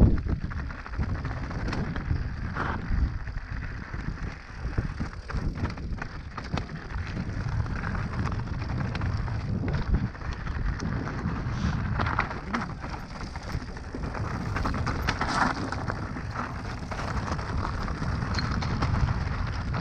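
Mountain bike riding over a rough trail: tyres on dirt and stones and the bike rattling, a steady low rumble with scattered clicks and knocks.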